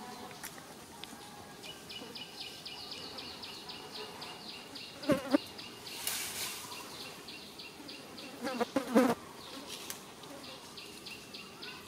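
An insect trilling in a rapid, even pulse, which stops briefly about nine and a half seconds in and then starts again. Twice, around the middle, a short, louder vocal sound breaks in over it.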